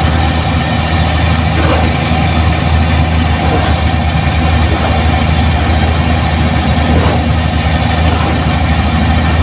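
Diesel engine of a hydraulic excavator running at a steady speed, a low even hum with no revving.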